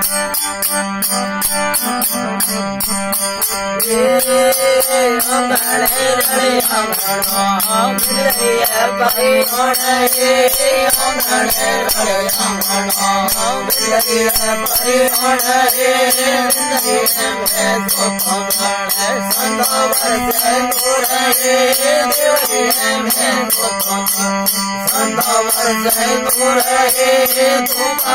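Rajasthani folk devotional music: a steady drone under a wavering melodic line that comes in about four seconds in, with constant fast jingling percussion.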